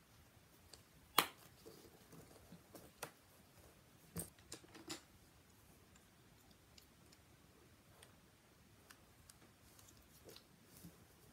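A few faint, sharp clicks and taps, as of small objects being handled. The loudest comes about a second in, with a small cluster around four to five seconds.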